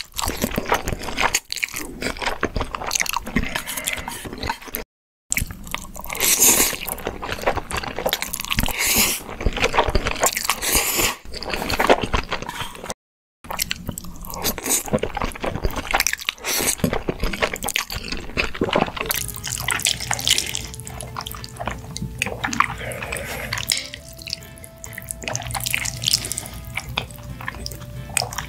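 Close-miked slurping and chewing of black bean noodles (jjajangmyeon), wet and noisy, cutting out completely twice for a moment. From about two-thirds of the way through, soft music with long held notes plays beneath the eating.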